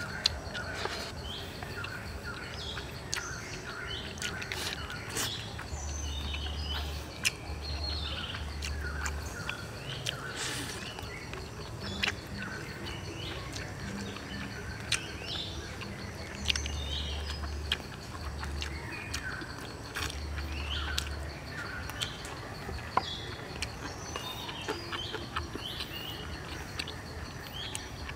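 Many small birds chirping and calling in short, repeated phrases throughout, with scattered sharp clicks and smacks of someone eating with their hands.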